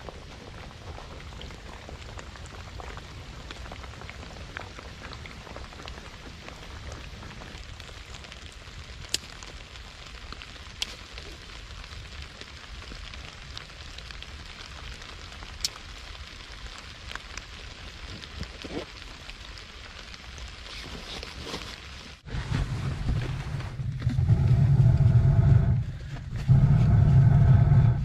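Steady rain falling, with an occasional sharp drip tick. About 22 seconds in it gives way to a much louder low rumble with a humming tone over it, which dips briefly near the end.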